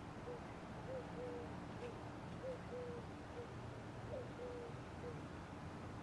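Evergo ceiling fan running, with a faint steady hum and a repeating pattern of short squeaky chirps, two short and one longer, coming round about every second and a half.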